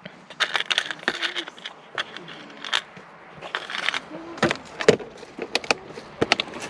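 Small hard objects being handled and rummaged through: an irregular string of sharp clicks, knocks and rattles.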